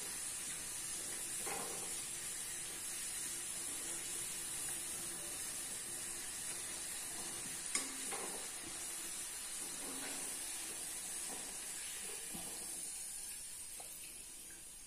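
Potato-and-pea balls deep-frying in a kadai of oil, a steady sizzle, while a perforated slotted spoon turns them and clicks against the pan a few times, once sharply about eight seconds in. The sizzle fades near the end as the balls are lifted out of the oil.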